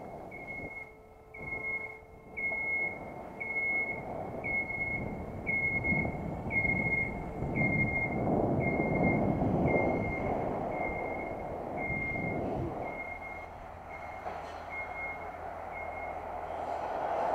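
An electronic beeper sounding a high, even beep about once a second, over wind and road noise from the moving bicycle; the beeping stops shortly before the end.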